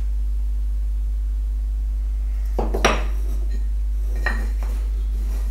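Two halved wooden pieces of a corner halving joint knocking against each other and the wooden workbench as they are taken apart and set down: a few short clatters about two and a half to three seconds in, and one more knock a little after four seconds. A steady low hum runs underneath.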